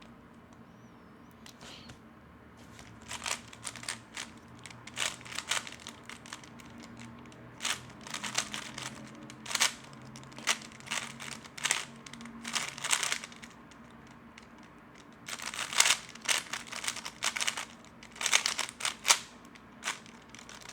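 3x3 Rubik's cube turned fast in a speedsolve: bursts of rapid plastic clicking and clacking as the layers turn, starting a few seconds in, with a brief pause about two-thirds of the way through.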